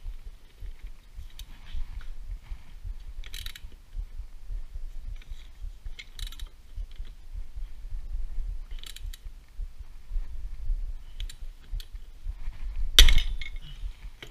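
Metal clicks and clanks of a wrench turning a flywheel puller on a Honda CRF 250 engine's ignition rotor, a click every second or two. Near the end, one loud sharp crack as the rotor breaks free of the crankshaft taper.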